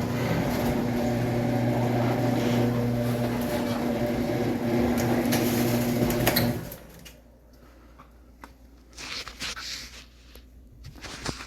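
A steady low mechanical hum that cuts off suddenly about six and a half seconds in. After it come quieter scattered knocks and rustling.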